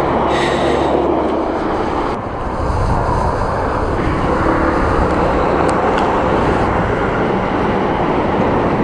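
Traffic passing close by on a busy road: cars and trucks going past in a steady rush of tyre and engine noise.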